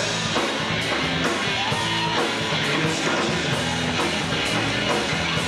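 Rock band playing an instrumental stretch of a swamp-rock groove: electric guitar over a steady drum beat, with no singing.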